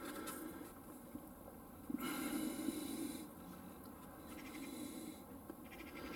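Faint breathing close to the microphone in slow, uneven swells, the strongest about two seconds in, with light handling noise.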